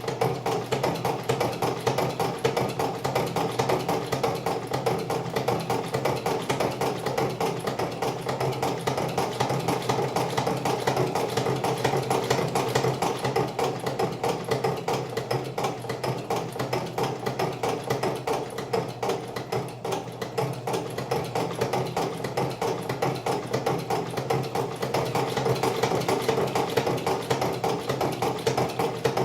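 1905 Singer 29-4 cobbler's patcher sewing machine driven by an electric motor, running steadily through marine vinyl: a fast, even clatter of the needle mechanism over a steady motor hum.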